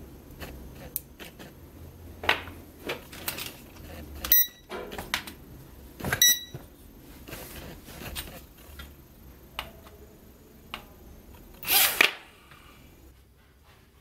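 Clicks and knocks from handling a tiny plastic toy quadcopter and its transmitter, with two short high electronic beeps from the transmitter about four and six seconds in. A louder rustling burst comes near the end.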